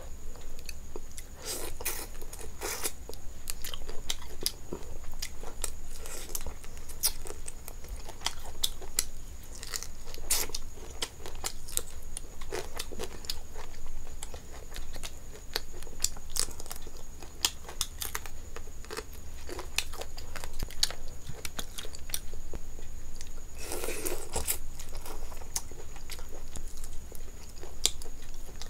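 Close-miked chewing and mouth sounds of a person eating rice and curry by hand: a steady run of wet smacks and clicks, with a denser, louder stretch late on.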